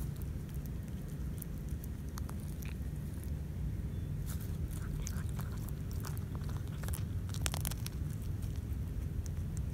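A cat chewing and biting into a freshly killed rat up close, its teeth giving irregular clicks that come thicker from about four seconds in, over a steady low hum.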